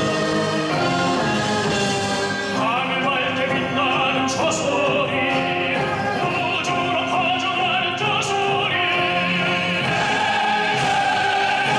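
Live concert music: a military band plays held chords, and from about two and a half seconds in a solo singer enters over it, singing long notes with wide vibrato in an operatic style.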